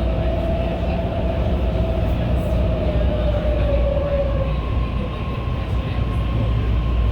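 BART rapid-transit train running, a steady heavy rumble of wheels on rails. A whining tone slowly falls in pitch and fades about four seconds in, while a higher whine comes in partway through.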